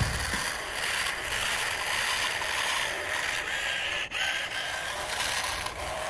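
Plastic toy dump truck being pulled through sand, its plastic wheels and axles giving a steady rattling grind that breaks off briefly about four seconds in.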